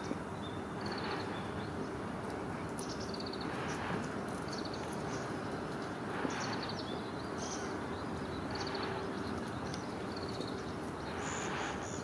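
Reed-bed ambience with a steady low hum, short high rapid trills repeated about once a second, and a few soft rustles.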